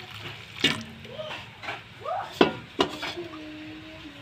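A few sharp knocks and clinks of cookware at a metal wok, three in all, with faint pitched calls or voices in the background.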